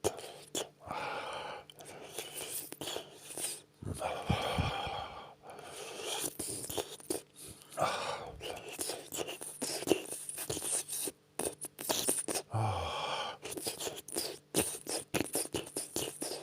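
Close-up wet mouth sounds: irregular licking, lip smacks and slurping, made as sound effects imitating oral sex. A short low hum comes about three quarters of the way through.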